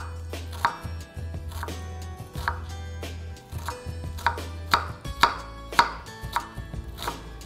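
Kitchen knife chopping a red onion on a wooden cutting board: sharp knocks of the blade on the board, about two a second in a steady rhythm.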